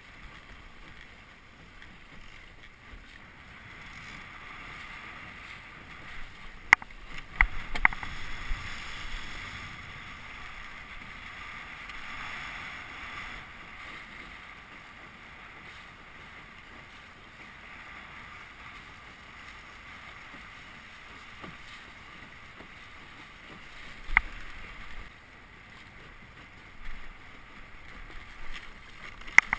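Steady hiss of water rushing along the hull of a Melges 17 scow sailing on a lake, with a light wash of wind. A cluster of sharp knocks comes about seven seconds in, with single knocks later and just before the end.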